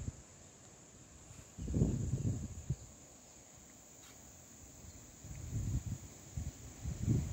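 A steady high-pitched drone of insects shrilling in the vegetation, with irregular low rumbles of wind buffeting the microphone. The rumbles come in a strong gust about two seconds in and again in several surges in the last couple of seconds.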